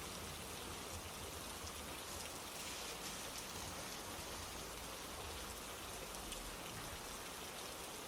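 Steady rain falling, with scattered raindrop taps on a surface.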